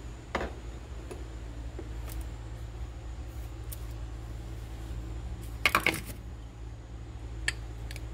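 Scattered light clinks and taps of a table knife against a glass butter dish, with a quick cluster of clinks a little past halfway, over a steady low hum.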